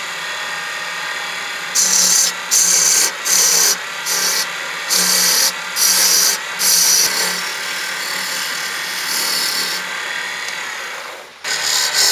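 Wood lathe spinning a hardwood blank with a steady motor hum while a steel turning tool cuts it, making a scraping hiss. The cutting comes as a run of loud, evenly spaced bursts, about one every half second, then evens out into softer steady cutting, breaks off briefly near the end and starts again.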